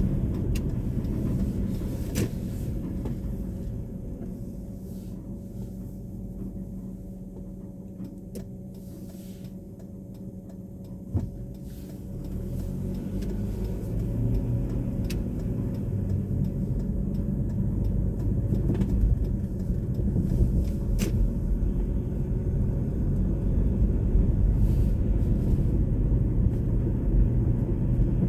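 Car driving: a steady low engine and road rumble that grows quieter through the middle, then louder again, with a single sharp click about eleven seconds in.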